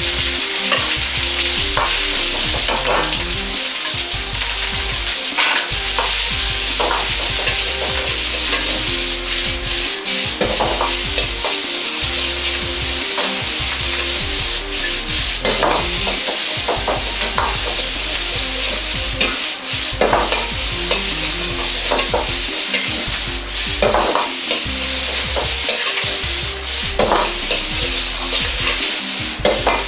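Diced vegetables and ham sizzling in a hot iron wok, with a steady frying hiss. A metal ladle scrapes and knocks against the wok every second or two as the food is stir-fried.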